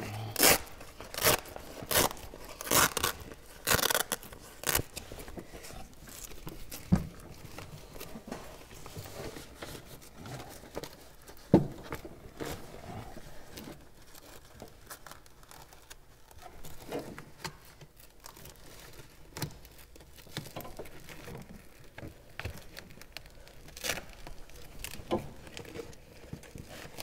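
Foil-faced heat-insulating sleeve crinkling and its Velcro closure ripping and pressing as it is wrapped around a line by hand. A quick run of short rips comes in the first few seconds, then quieter rustling with a few single sharp knocks.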